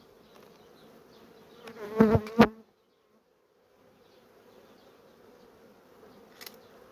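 Honey bees humming around an open hive, with one bee buzzing loudly right past the microphone about two seconds in. The colony is a little agitated from having its frames pulled.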